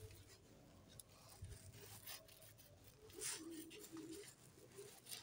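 Near silence: room tone with a few faint rustles and soft clicks.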